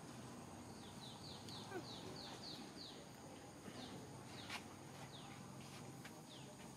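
Faint, high animal chirps: a quick run of about eight short falling notes, then a few more spaced out, with a sharp click about four and a half seconds in.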